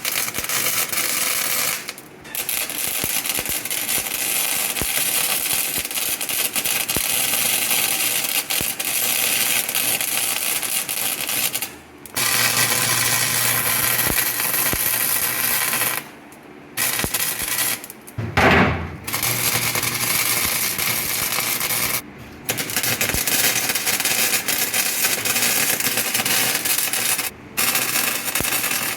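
MIG welder laying weld on sheet-metal body panels: a steady crackle and sizzle of the arc that stops briefly about six times as the welder pauses between beads. About two-thirds of the way in there is one short louder burst.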